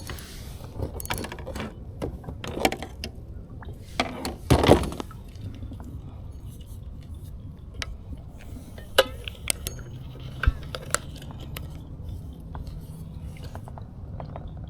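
Scattered small clicks and clinks, like gear being handled, with a louder cluster of knocks and rustling about four and a half seconds in.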